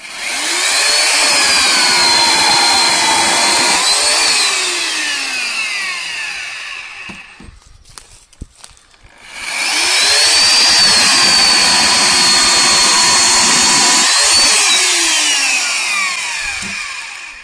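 Electric chainsaw making two cuts through a log. Each time the motor whines up to speed, dips slightly under the load of the cut, rises as it breaks through, then winds down to a stop. The second cut starts about nine and a half seconds in.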